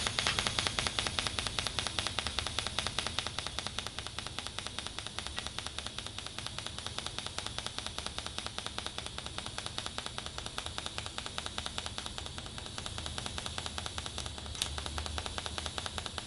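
DC TIG welding arc from a Miller Multimatic 255 in pulse mode at 5 pulses per second: a steady hiss that beats in quick, even pulses. A single sharp tick comes near the end.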